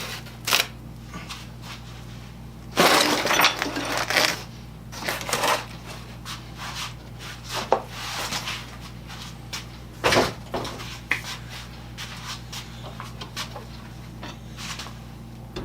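Freshly painted metal parts being handled and set down: scattered knocks and clatters, with a longer, louder scraping rustle about three seconds in, over a steady low hum.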